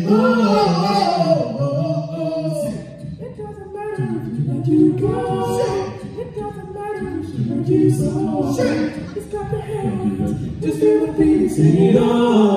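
Four male voices singing a cappella in harmony into handheld microphones, several sung lines moving together with no instruments.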